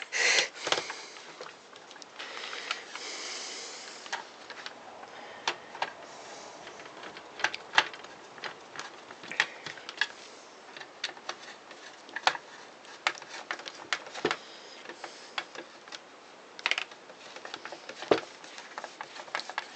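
Irregular small clicks and taps of a screwdriver and screws being handled while screws are driven into the housing of a Makita 5621RD circular saw.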